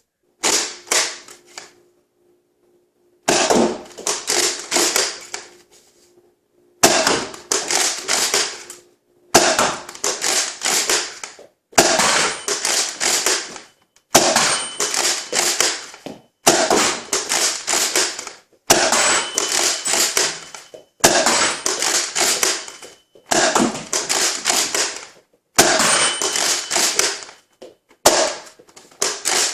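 Nerf Rival Edge Jupiter XIX-1000 foam-ball blaster being primed and fired repeatedly: about a dozen short bursts of clacking and popping shots, roughly one every two and a half seconds, each cut off abruptly.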